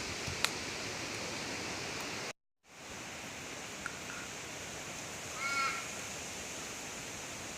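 Quiet bushland outdoor ambience with a steady hiss, cut to dead silence for a moment a little over two seconds in. About five and a half seconds in, a bird calls once, briefly.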